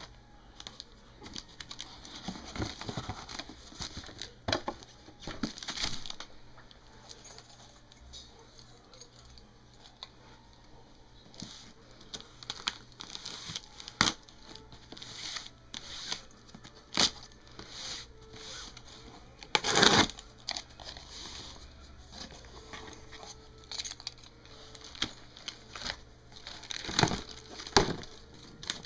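Packaging being handled while a car amplifier is unboxed: irregular crinkling and rustling, with scattered clicks and knocks. The loudest is a burst about two-thirds of the way through.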